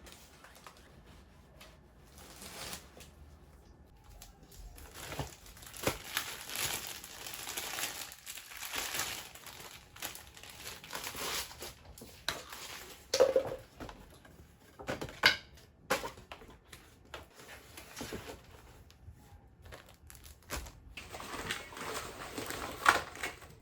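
Rustling and crinkling from things being handled, with a few sharp knocks about halfway through.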